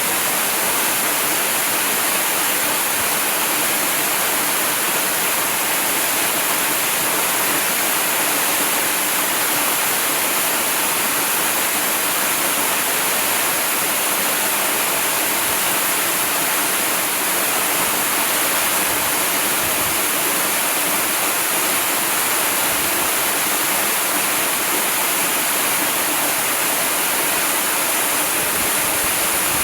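Waterfall: a steady, even rush of falling water with no change throughout.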